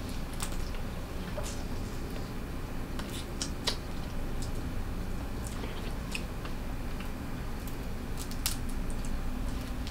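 Cooked blue crab shell being picked apart by hand: small sharp cracks and clicks at irregular intervals, with chewing.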